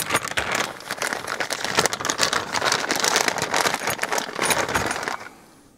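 Clear plastic bag crinkling and rustling as hands rummage through it for a tool. The crinkling stops about five seconds in.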